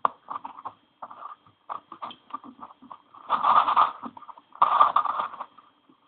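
Plastic layers of a 3x4x5 cuboid twisty puzzle being turned by hand: a series of short clicks and scrapes, then two longer grinding turns a little past halfway.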